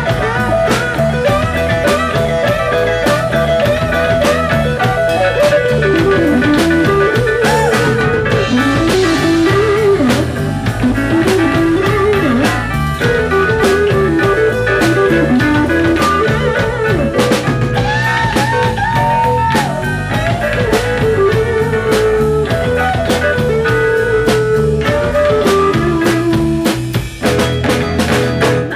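Live blues-rock band playing an instrumental passage: an electric guitar lead with bent, wavering notes over a drum kit.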